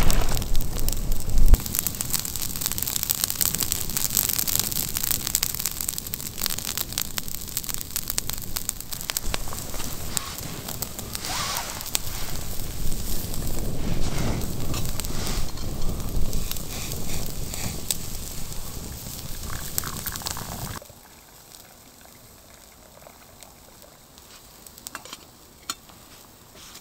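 Wood cooking fire crackling and sizzling, a dense hiss full of small pops. About 21 seconds in the sound cuts off abruptly, leaving a much quieter background with a few faint ticks.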